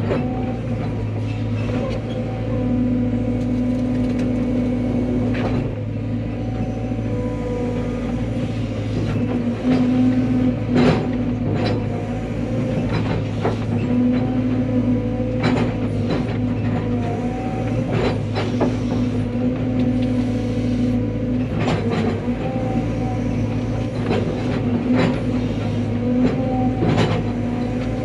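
Cat 320 excavator's diesel engine running steadily under work, with frequent sharp knocks and clanks through it, one of the loudest about ten seconds in.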